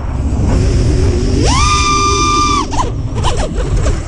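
FPV racing quadcopter's soft-mounted brushless motors whining. The pitch rises sharply about a second and a half in as the throttle is punched, holds high for about a second, then drops, over a steady low rumble.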